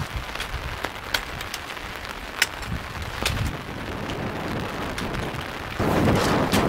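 Gusty wind and rain, with the wind buffeting the microphone and the half-pitched tent's fly flapping. Sharp ticks are scattered throughout, and a stronger gust comes about six seconds in.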